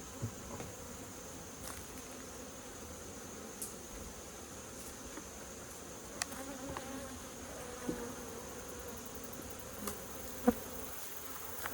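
Honeybees buzzing around an opened hive, a steady hum with a few light clicks scattered through it.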